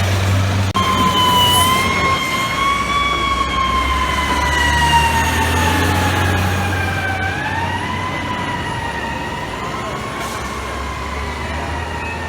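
Fire truck siren wailing over the low rumble of the truck and traffic. Its pitch climbs, sinks slowly for several seconds, climbs quickly again about seven seconds in, then sinks slowly once more.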